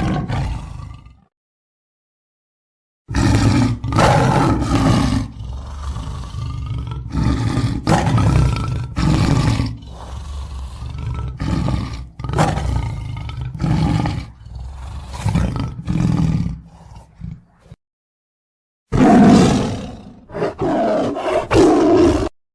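Lion roaring: one short roar at the start, then a long series of deep, repeated roars and grunts, and one more burst of roaring near the end, separated by gaps of dead silence.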